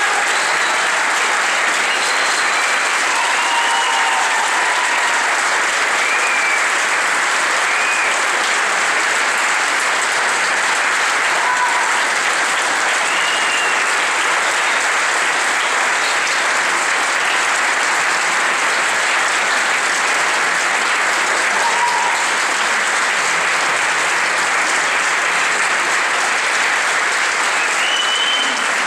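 Audience applauding steadily, with a few short calls rising above the clapping now and then.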